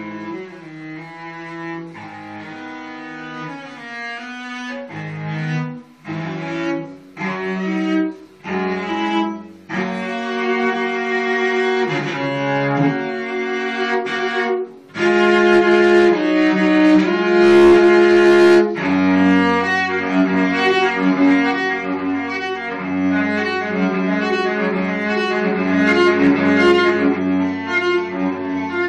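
A newly built, still unvarnished handmade cello being bowed for the first time. It plays a run of separate notes with short breaks, then louder, longer phrases from about halfway, with a low note sounding steadily beneath the melody in the last third.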